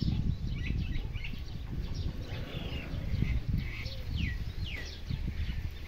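Birds chirping, with short high calls and several quick falling peeps about two-thirds of the way through, over a steady low rumble.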